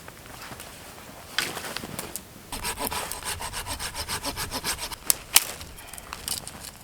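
Hand saw cutting through a piece of firewood in quick, even back-and-forth strokes, followed by two sharp knocks of wood.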